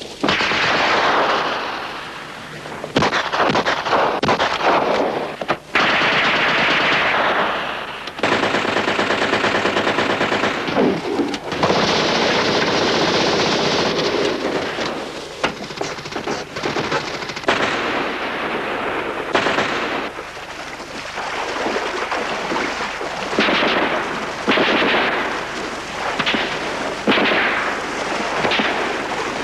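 Machine-gun fire with rifle shots: long rapid strings of fire that start and stop several times, the longest run beginning about eight seconds in.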